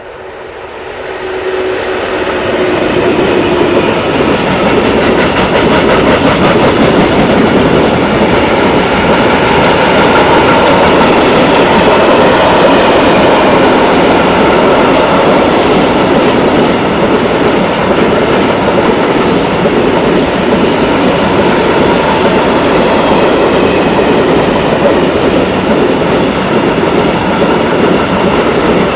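Freight train passing close by: locomotive 183 007-4 hauling a string of Eas open freight wagons, rolling past on the rails. It grows quickly louder over the first few seconds as the train arrives, then holds a loud, steady rumble.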